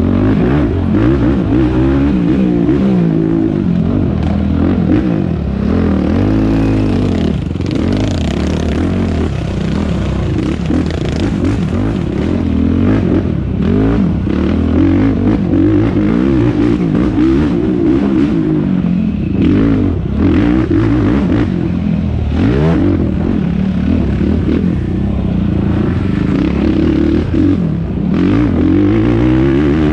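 Yamaha YFZ450R single-cylinder four-stroke quad engine racing off-road, revving up and down over and over as it is throttled through the gears, with clattering and knocks from the machine over rough ground.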